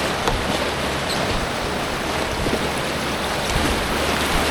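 Creek rapids rushing steadily around an inflatable two-person kayak as it runs them.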